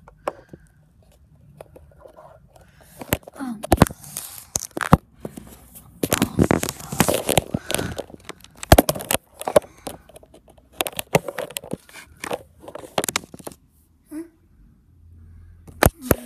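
Handling noise from a phone camera being picked up and moved about: irregular close knocks, scrapes and crinkly rustling, with several sharp knocks standing out, then a quieter stretch near the end.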